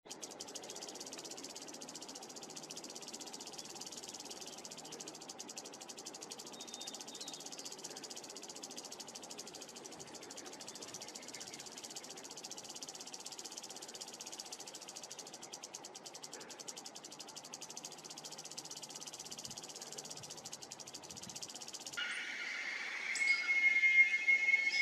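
A chorus of insects chirring in a steady, very fast pulsing trill. About three seconds before the end, a louder, sustained pitched tone with overtones comes in over it.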